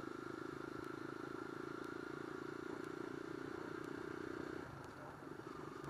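Supermoto motorcycle engine running at a steady cruise, heard from the rider's own bike, then easing off about four and a half seconds in as the throttle is rolled back.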